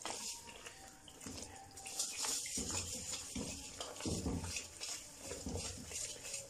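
A steel ladle stirring melted sugar and ghee in a metal wok: wet sloshing with scraping strokes roughly once a second.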